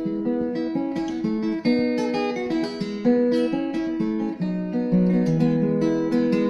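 Solo acoustic guitar with a capo, played as a slow progression of picked chords.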